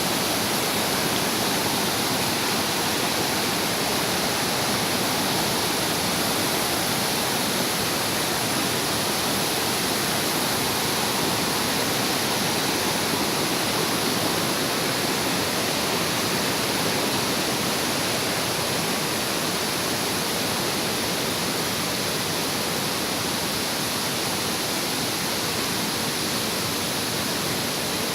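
Waterfall and fast-flowing river water rushing, a steady, unbroken roar of falling water.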